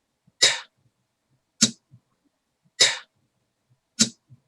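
A person pronouncing the isolated consonants t and d in alternation as a pronunciation drill: four short, breathy bursts about a second apart, the voiceless t alternating with its voiced partner d.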